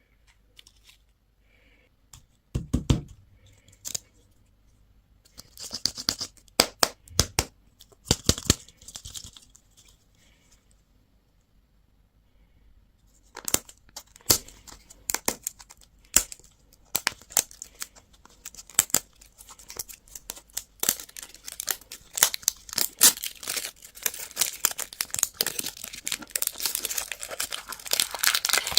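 Crinkly candy wrapper being handled and torn open. Scattered crackles at first, then dense, continuous crinkling from about halfway through that grows louder near the end.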